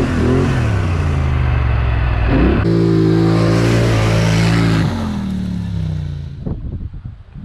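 Polaris Scrambler XP 1000 ATV's twin-cylinder engine revving under load, held at a steady high pitch, with an abrupt jump about two and a half seconds in. Near the end the engine winds down, falling in pitch, and fades out.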